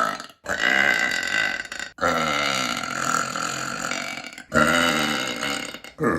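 A woman's long, drawn-out burps, three in a row, each lasting about one and a half to two and a half seconds and cut off abruptly into the next.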